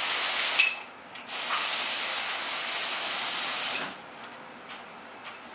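Loud hissing spray in abrupt bursts: one burst cuts off under a second in, and another starts about a second later and runs for about two and a half seconds.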